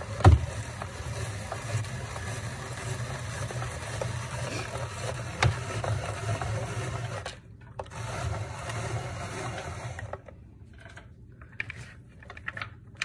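A hand-crank Inspiralizer spiralizer cutting a zucchini into noodles: steady rhythmic grinding and scraping of the crank and blade, with a sharp knock just after the start. The cranking breaks off for a moment past halfway, resumes, then stops about ten seconds in, leaving only light handling ticks.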